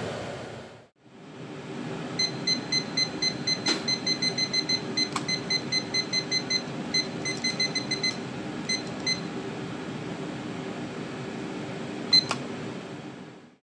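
Digital kitchen timer beeping as its button is pressed repeatedly to set the minutes: short, high beeps about four a second for roughly seven seconds, with a few brief pauses. A few sharp clicks, the loudest near the end, over a steady low hum.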